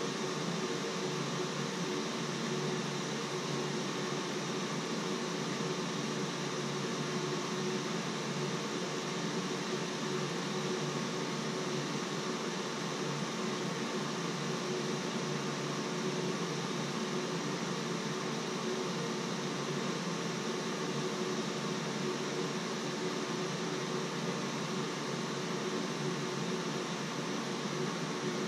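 Steady fan noise: an even hiss with a faint hum, no change or break.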